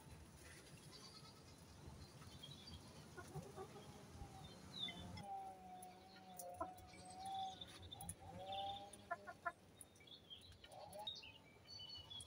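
Faint bantam chicken calls: two low, drawn-out, slightly wavering calls in the middle, followed by a few light clicks and some brief high chirps near the end.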